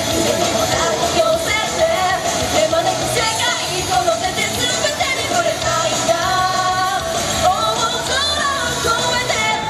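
Female vocalist singing an idol pop-rock song live, over band accompaniment with electric guitar.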